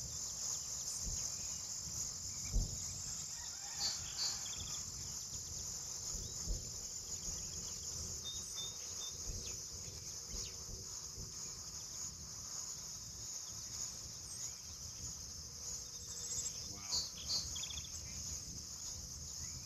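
Several dull, distant booms sound low under a steady high chorus of crickets in an open field, the strongest about two and a half seconds in. The booms' source is unknown, and the recordist likens them to distant cannon fire.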